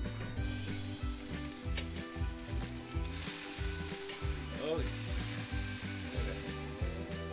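Ribeye steaks sizzling on the hot grate of a charcoal Weber kettle grill, the sizzle louder from about three seconds in, with metal tongs scraping against the grate as the steaks are handled. Background music plays underneath.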